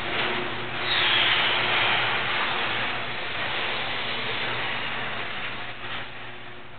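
Sears Craftsman 1/2 horsepower chain-drive garage door opener running as it closes the door: a steady, noisy motor hum over a rushing mechanical noise, which stops near the end.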